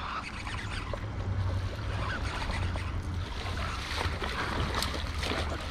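Hooked bass splashing and thrashing at the pond's surface as it is reeled in toward the bank, the splashing heaviest in the second half, over a steady low wind rumble on the microphone.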